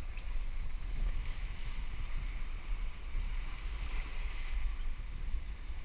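Wind buffeting the camera's microphone in a constant low rumble, over the hiss and splash of waves rushing along the hull of a heeled sailing yacht under way in rough water.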